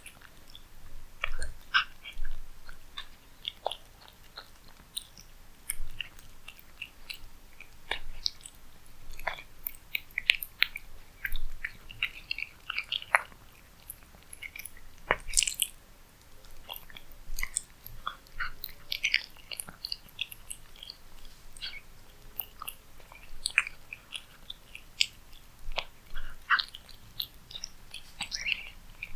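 A cat eating close to the microphone: irregular, quick, wet clicks and crunches of chewing and biting, with louder bites every second or so.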